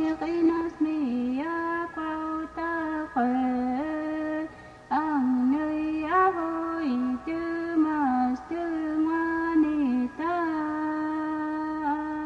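Background music: a slow melody of long held notes that slide into each new pitch.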